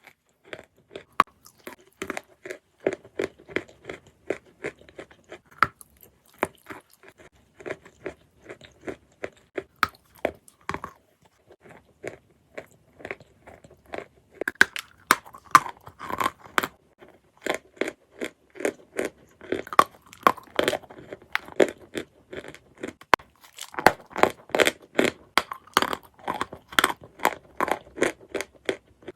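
Close-miked crunching and chewing of a piece of 'Halva' variety edible chalk: a steady run of crisp bites and crunches, about two to three a second, thinning out briefly near the middle and growing louder in the second half.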